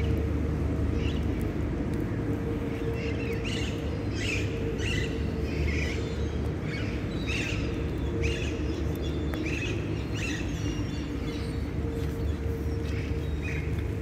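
Small birds chirping in short, repeated calls scattered throughout, over a steady low rumble with a faint constant hum.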